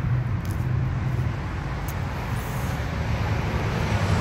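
Motor vehicle engine running nearby: a steady low rumble with a faint hum.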